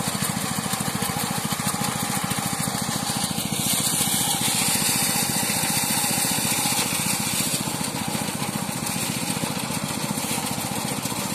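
Engine-driven rice thresher running steadily with a fast, even pulsing, its drum threshing rice stalks as bundles are fed in.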